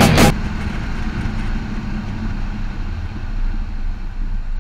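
Rock music cuts off a moment in. After it, a Ford SVT Lightning pickup's V8 runs with a low, steady exhaust rumble as the truck rolls slowly, with some road noise underneath.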